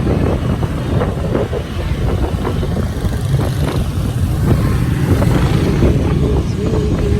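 Honda Click 125i scooter being ridden steadily along a road, its engine and road noise mixed with wind buffeting the microphone.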